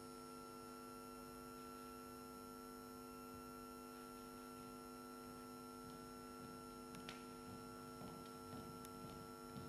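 Near silence with a steady electrical hum. Faint footsteps begin in the last couple of seconds as a group of people walk across the floor.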